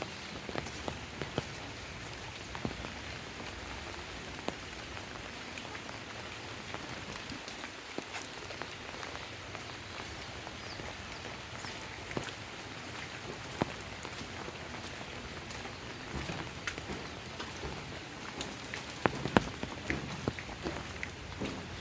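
Steady rain falling, with many sharp individual drops and drips landing close by, more of them and louder near the end.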